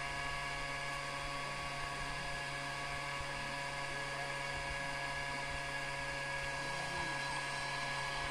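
Small DC fan in a homemade rechargeable fan-and-speaker box running steadily, a constant motor whine and hum.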